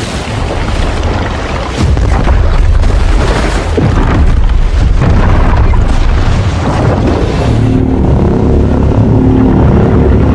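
Synthesised Evolved Godzilla sound effect: a loud, heavy rumble that jumps louder about two seconds in, with a low droning growl coming in near the end.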